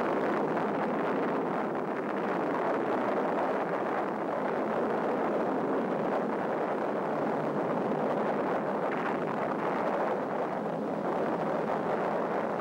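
Rumble of a nuclear test explosion: a continuous, even roar that holds steady.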